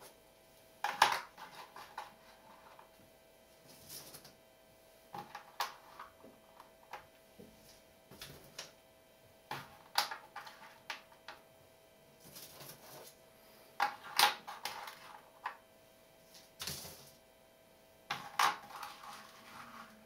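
Hands placing and sliding small letter shapes on a paper surface: irregular taps and clicks with short scraping rustles, over a faint steady hum.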